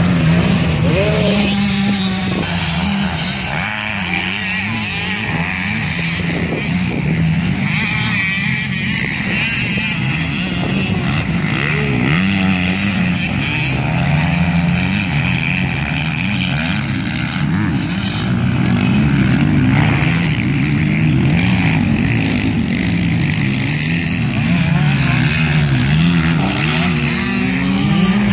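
Several motocross bikes racing, their engines revving up and dropping back again and again as the riders accelerate and pass.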